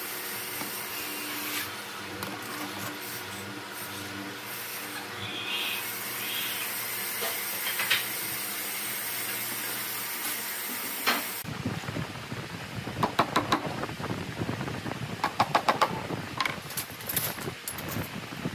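A steady hiss over a faint low hum. About eleven seconds in it changes abruptly to a run of irregular knocks and taps.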